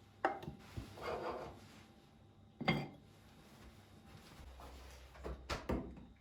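Household objects being handled: a few sharp knocks of things set down on a hard surface, with a short rubbing scrape about a second in.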